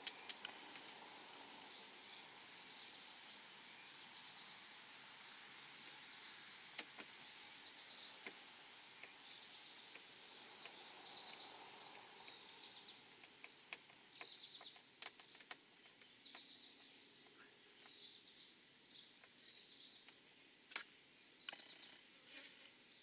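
Faint outdoor ambience of small birds chirping in short repeated phrases, with a few sharp clicks and taps from hands working on the scooter's plastic front fairing and windshield.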